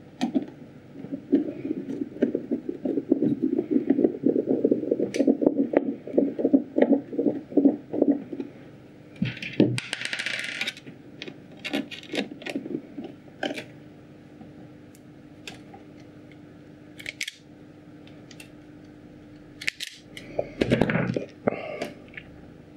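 Hand screwdriver driving screws to refit the amplifier panel on a subwoofer enclosure: a run of quick rasping clicks for about eight seconds. After that come a brief scraping rustle and scattered light clicks and knocks.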